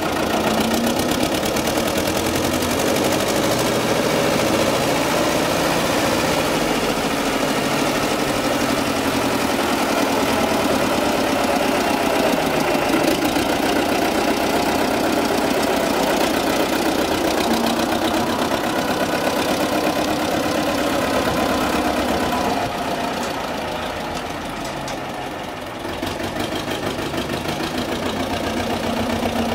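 MAN B18A vintage tractor's diesel engine running as it drives and works the front loader, its note rising and falling a little. It fades for a few seconds near the end, then comes back up.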